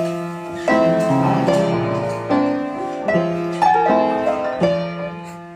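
Upright piano being played by hand: a slow melody of single notes over held low notes.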